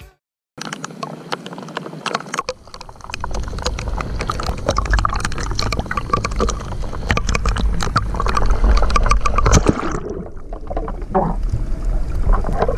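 Rain and spray crackling on the sea surface around an action camera held at the waterline, over a low rumble of wind or sea on the microphone. About ten seconds in the sound turns muffled as the camera goes under water.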